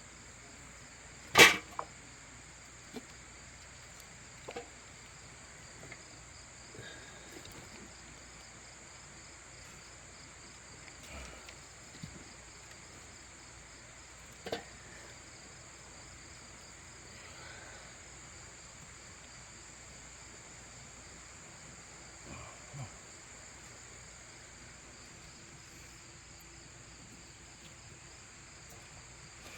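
Steady high-pitched chorus of crickets and other insects. One sharp, loud knock comes about a second and a half in, and fainter knocks and clicks follow now and then.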